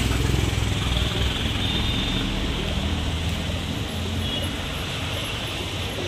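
A motor vehicle engine running steadily, with street traffic noise, slowly growing fainter.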